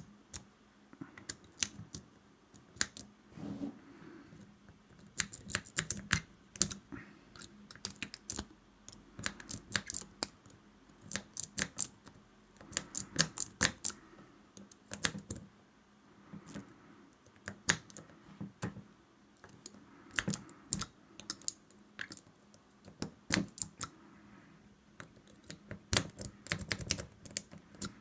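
Metal lock pick working a double-sided wafer lock under a single tension wrench: irregular bursts of sharp metallic clicks and scrapes as the wafers are raked.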